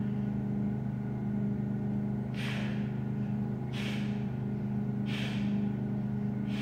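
Three short, forceful exhalations about a second and a half apart, from a man pressing a pair of kettlebells while lying on the floor, over a steady low hum.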